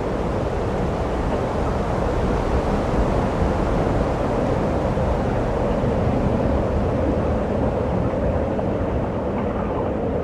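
Blizzard wind rushing over the phone's microphone as a steady low rumble.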